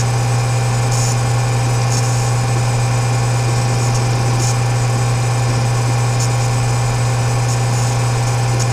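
A steady low hum that does not change, with faint high ticks here and there.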